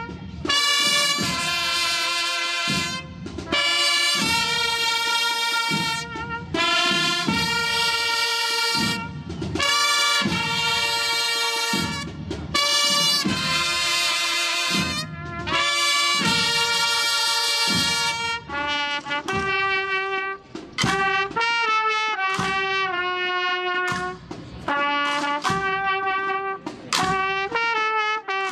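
Brass band with trumpets and trombones playing a slow processional march: loud held chords separated by short breaks. About two-thirds of the way through it turns to a softer melody of shorter, stepping notes.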